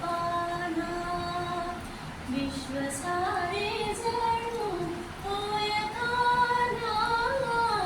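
A woman singing a slow melody solo, holding long notes that slide between pitches.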